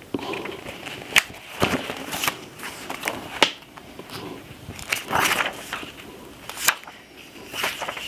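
Pages of a book being turned and handled: several sharp paper snaps and rustles, with a longer swish of a page about five seconds in.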